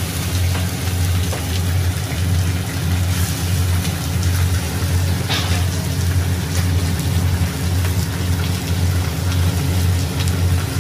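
Braising catfish steaming and sizzling in a wood-fired wok, under the steady low hum of a kitchen fan.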